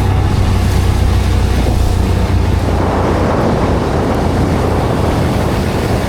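An engine running steadily with a low hum. About halfway through, a rougher, noisier sound rises over it.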